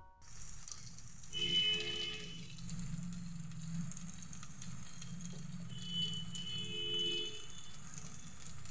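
Cabbage and prawn curry sizzling in a pan, a steady frying hiss. A faint high tone sounds twice, about a second and a half in and again around six seconds.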